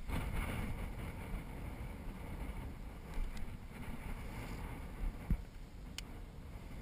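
Wind buffeting the microphone: an uneven low rumble, with a short thump about five seconds in and a sharp click just after.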